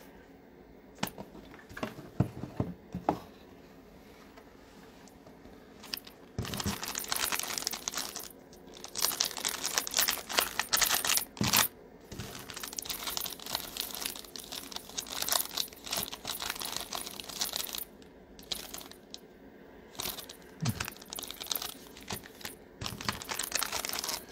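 Foil trading-card packs crinkling as they are handled and sorted. The first few seconds hold only light taps and clicks, then a dense, crackly rustle goes on, with short breaks.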